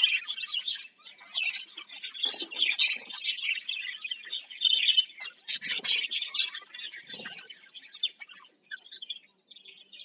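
A flock of budgerigars chirping and chattering together, many birds at once in quick, overlapping high-pitched warbles, with a brief lull about a second in.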